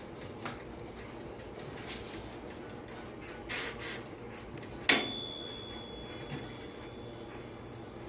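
Oven's dial timer ticking softly. About five seconds in, a sharp metallic click rings on in a thin high tone for about three seconds.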